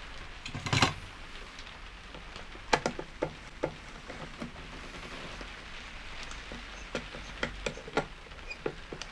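Steady rain hiss, with a knock about a second in and scattered light clicks and taps from a screwdriver driving Phillips screws into a small two-stroke generator's plastic front panel.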